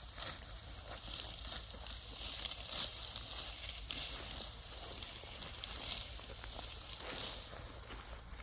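Dry wheat stalks rustling and crackling in quick, irregular strokes as the wheat is harvested by hand.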